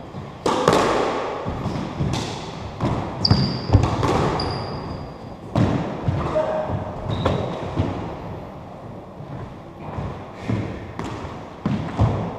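Squash rally: sharp hits of a squash ball off rackets and the court walls, about a dozen of them at an uneven pace, each ringing out in the echoing court. Short high shoe squeaks on the wooden floor come in between.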